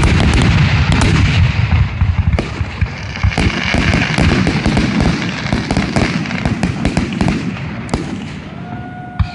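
Aerial fireworks in a dense barrage: rapid overlapping bangs over a steady crackle that eases off about eight seconds in, then one last sharp bang near the end.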